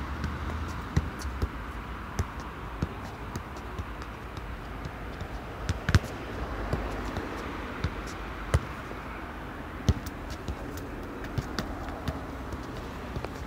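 A football being juggled and kicked on paving: irregular sharp taps of the ball off feet and the ground, the loudest about halfway through, over steady outdoor background noise.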